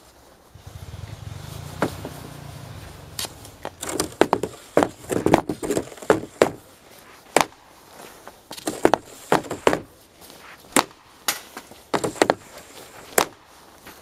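Slap shots with an Easton Stealth RS hockey stick on outdoor ice: a dozen or more sharp cracks of the blade striking the ice and puck, some in quick pairs, starting about three seconds in. A low hum runs underneath for the first few seconds.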